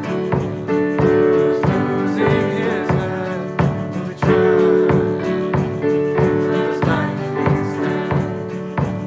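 Instrumental break of a band's song: sustained chords over a steady drum beat, with little or no singing.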